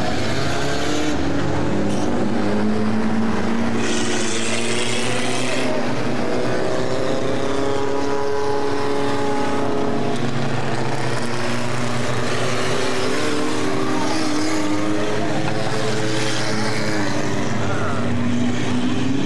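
Several Hornet-class race car engines running together around the short oval, their pitches rising and falling as the cars pass. A brief rush of hiss comes about four seconds in.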